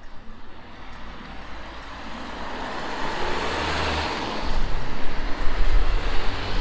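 Passing road traffic on wet asphalt: a van drives by, its tyres hissing on the wet road and swelling to loudest about four seconds in. After that a low rumble comes in as a second car draws close.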